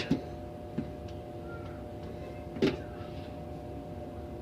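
Steady low electrical-sounding hum, with a few light clicks and one sharper knock about two and a half seconds in, like small objects being set down.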